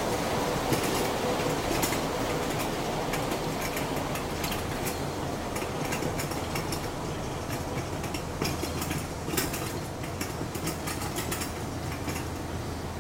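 Steady mechanical drone of running machinery with a constant low hum, broken by scattered sharp clicks that come more often in the second half.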